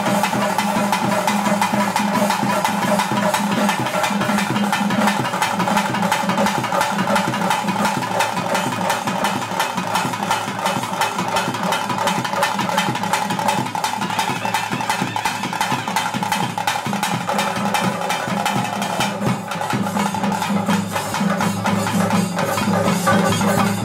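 Traditional ritual music of a Tulu bhuta kola (daivaradhane): fast, continuous drumming with a steady held tone underneath.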